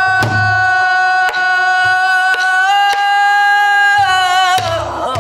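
A woman singing pansori-style, holding one long note with a slight waver for about four seconds before it bends downward, accompanied by a buk barrel drum: sharp stick strikes and deep palm thumps on the drumhead.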